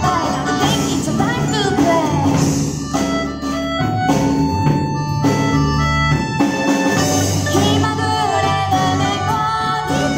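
Live Irish-style folk band playing an upbeat tune: melodica, acoustic guitar, mandolin and drum kit, with a woman singing near the start and near the end and long held reed-like notes in between.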